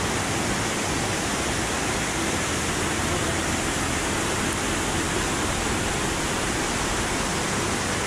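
Steady rushing of falling water, an even, unbroken hiss that holds the same level throughout.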